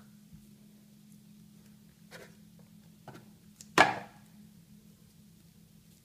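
Plastic parts of a Play-Doh Fun Factory set being handled: two faint clicks, then one sharp plastic clack just before four seconds in as a piece is put down on the table. A low steady hum lies under it.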